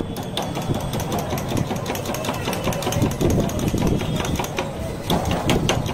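A metal spoon stirring cold coco inside a glass tumbler, clinking rapidly and repeatedly against the glass over a low background rumble.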